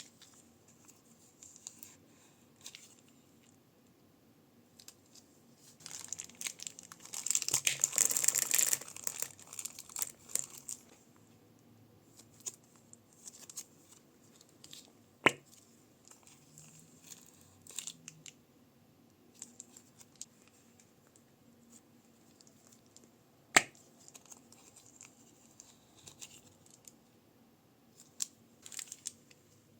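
Crunchy slime and plastic bags handled close to the microphone: intermittent crinkling and crackling, with a dense crackling stretch about six to eleven seconds in and two sharp clicks later on.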